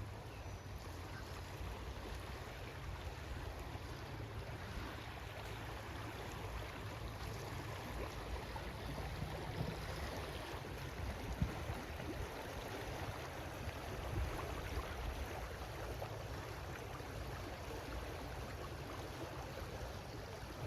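Steady rushing of flowing river water, with a low rumble underneath.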